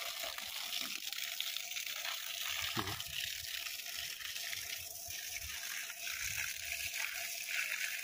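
Steady rushing hiss of water spraying from a garden hose onto plants, with a faint steady hum underneath.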